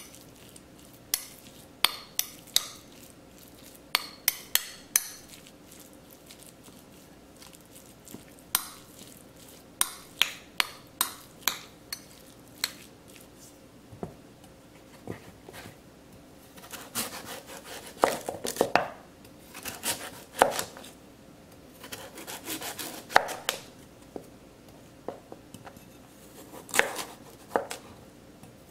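A metal spoon clinking and scraping against a ceramic bowl as seasoned ground pork is stirred, then a chef's knife slicing through raw taro root and knocking on a plastic cutting board in a run of cuts.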